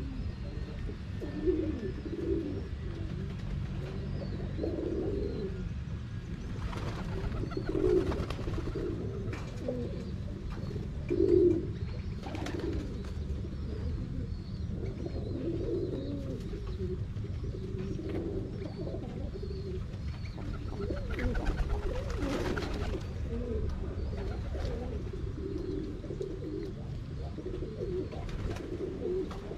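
Domestic pigeons cooing over and over, several birds overlapping, over a steady low rumble.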